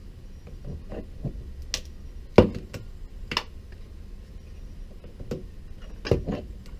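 Irregular clicks and knocks from the metal winding handle of a Glassbot Quarter Master windshield cut-out tool as it is turned by hand, the loudest knock about two and a half seconds in and a close pair near the end.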